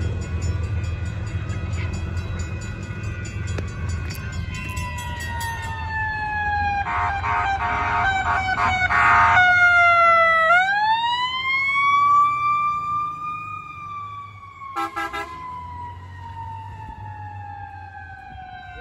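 Fire department rescue truck siren wailing, its pitch sliding slowly down, rising once about ten seconds in, then sliding down again as it moves away. Horn blasts rattle over it from about seven to nine seconds in, with a short blast near fifteen seconds. A low engine rumble lies under the first half.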